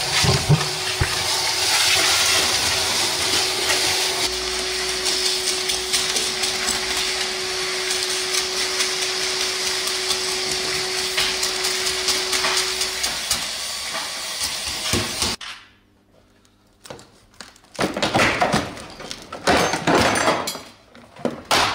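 Vacuum cleaner sucking up broken glass from a stripped car floor: a steady rushing noise with a faint hum, which cuts off about fifteen seconds in. Near the end come irregular crunches and clatters of window glass being broken out.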